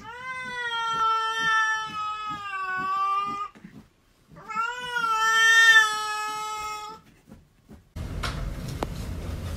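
A cat gives two long, drawn-out meows of about three seconds each, with a short pause between them. Near the end comes a steady noisy background with a few sharp clicks.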